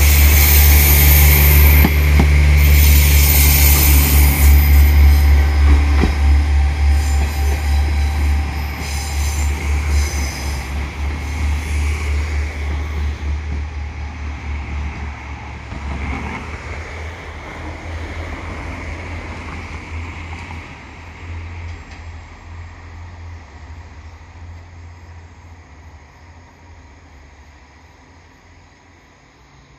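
A train running past on the rails, loud at first with a heavy low rumble, a steady high tone and hiss. It then fades steadily away into the distance over about half a minute.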